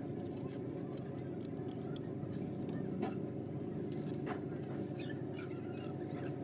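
Light clicks and scrapes of CPVC pipe and fittings being handled, with a blade worked against a pipe end, over a steady low background rumble.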